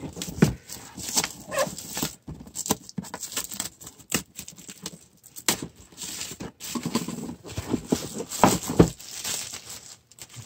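Clear plastic shrink-wrap crinkling and rustling as it is peeled off a cardboard box, in irregular crackly bursts with short pauses between them.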